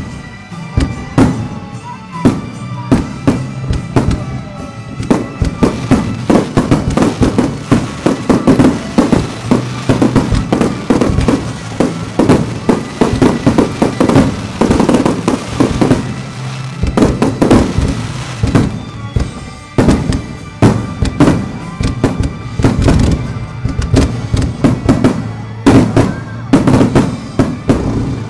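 Finale barrage of nishiki kamuro (golden crown) firework shells bursting in rapid succession: dense, overlapping bangs, thickest in the middle and again near the end, with a slight lull about two-thirds through. Music with sustained tones plays underneath.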